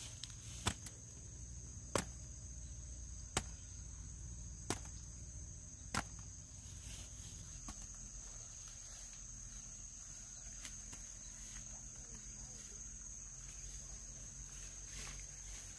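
Insects chirring in a steady, high-pitched drone, with five sharp clicks about a second and a half apart in the first six seconds.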